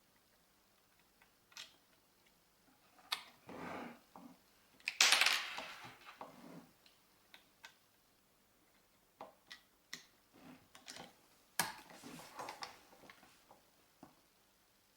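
Scattered mechanical clicks and short scraping, rustling handling noises from an air rifle being handled between shots, with the loudest scrape about five seconds in and a sharp click just before twelve seconds.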